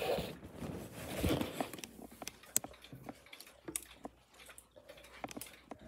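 Rustling handling noise for about the first two seconds, then scattered light clicks and taps.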